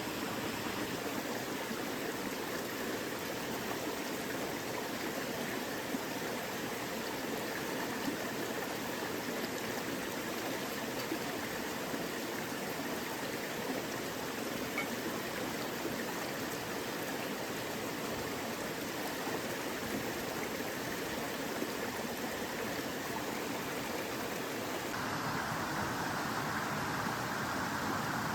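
Mountain stream water rushing and splashing steadily over rocks; the sound of the water changes near the end.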